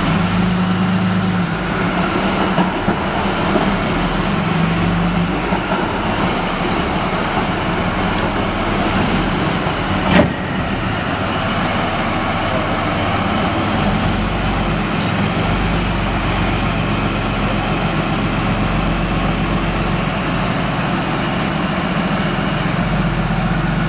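Leopard 2A4 tank's MTU V12 diesel engine running steadily as the tank drives slowly forward on its tracks. A single sharp knock comes about ten seconds in.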